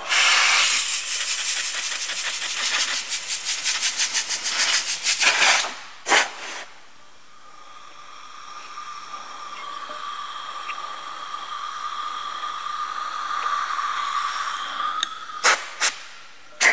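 Compressed-air blow gun blasting air: a long, loud, fluttering hiss for about five seconds, then a short blast. Near the end come two more short blasts. In between, a quieter steady whine holds.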